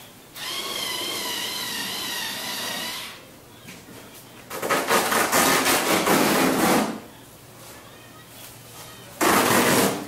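A power tool runs in three spells: a wavering high whine for about three seconds, then a louder, harsher noise for about two and a half seconds, and a short loud burst near the end.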